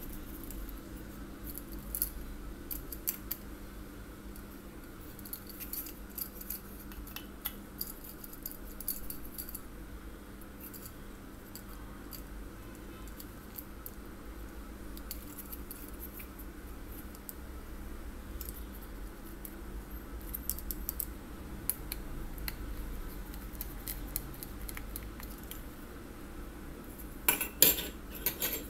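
Small screwdriver clicking and scraping on the brass terminal screws of a plastic screw-type bulb holder as the wires are fastened, in scattered light clicks, with a quick run of louder clicks near the end. A steady low hum runs underneath.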